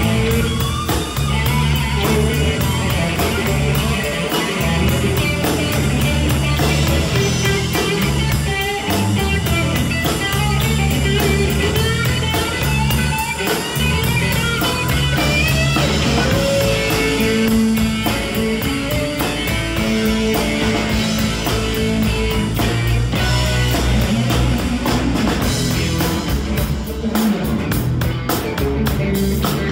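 Live rock band playing, with electric guitar over a drum kit, loud and steady throughout.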